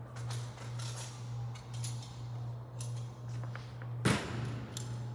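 Light-gauge steel stud and track rattling and scraping as the stud is set inside the track, with one sharp metallic knock about four seconds in.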